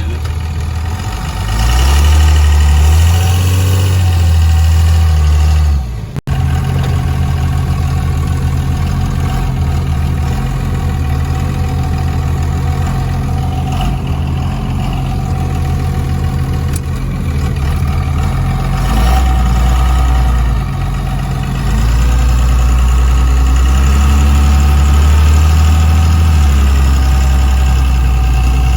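5.9 Cummins inline-six turbo diesel running as the truck drives. It swells louder twice, a few seconds in and again for the last several seconds, with a brief dropout about six seconds in.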